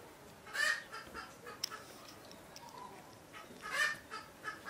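Chickens clucking, with two louder hen calls, one about half a second in and one near the end, and shorter clucks between.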